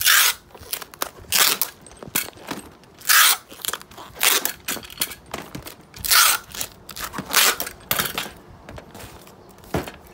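Clear packing tape being pulled off a handheld tape dispenser in repeated short, rasping rips, about one a second, as it is run over a parcel.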